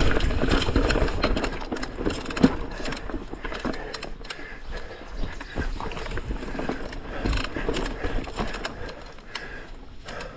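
Mountain bike riding fast down a dirt forest trail: tyres rumbling over dirt and roots, with frequent rattles and clicks from the bike and a sharp knock about two and a half seconds in. The noise is loudest at first and eases off toward the end.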